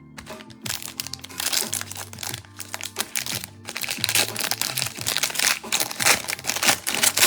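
Plastic wrapping on a trading-card box and packs being torn open and handled: dense, rapid crinkling and crackling. Background music with a steady low bass line plays underneath.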